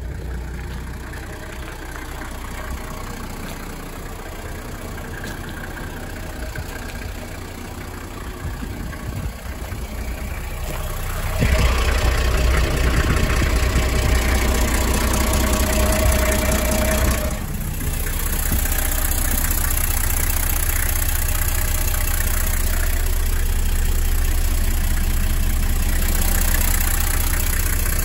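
Toyota Coaster HD30's 12H straight-six diesel engine idling steadily. It is much louder for about six seconds in the middle, heard up close beneath the chassis.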